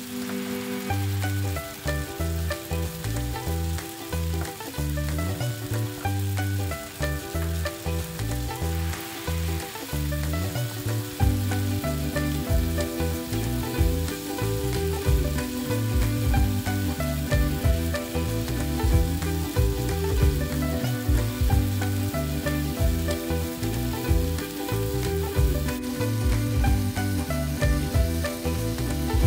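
Chicken and sliced onion stir-frying in oyster sauce in a non-stick pan: a steady sizzle, with a wooden spatula stirring and scraping through the food. Background music plays underneath.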